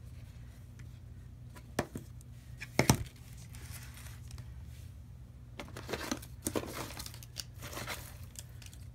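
Art supplies being handled: a thin plastic bag holding palette scrapers crinkles in a spell of crackling in the second half. A few sharp taps come earlier, the loudest a double knock about three seconds in, as a plastic paint tube is put down on the table. A low steady hum runs underneath.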